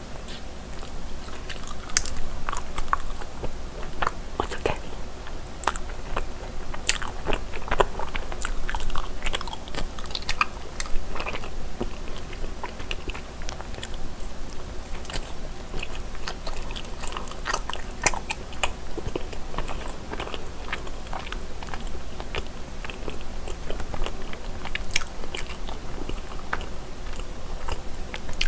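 Close-up chewing and biting of soft cream-cheese-filled mochi rice cakes (chapssaltteok), with many small mouth clicks running throughout.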